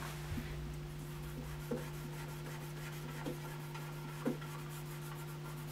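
A cloth rubbing faintly over the UV-yellowed plastic lid of a WEGA C700SH cassette deck, with a few light knocks, over a steady low electrical hum.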